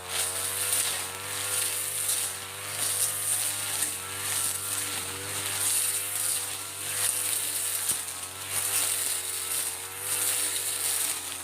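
Mitsubishi TU33 two-stroke brush cutter running at high speed, its engine note wavering and its cutting hiss swelling and fading every couple of seconds as the blade bites into fern undergrowth.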